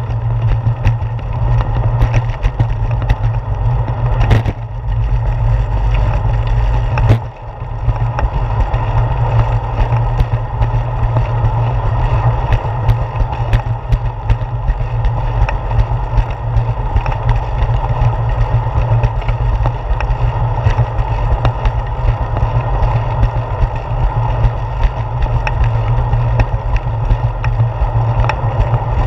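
Steady low rumble of wind and ride vibration picked up by a handlebar-mounted GoPro Hero 4 on a moving bicycle, with scattered sharp clicks and a louder knock about seven seconds in, after which the rumble dips briefly.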